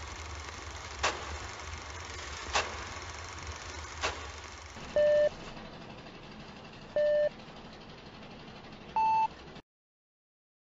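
Film countdown leader sound effect: old-film hiss over a low hum with three sharp pops about a second and a half apart, then three short beeps two seconds apart, the last one higher-pitched. It cuts off suddenly near the end.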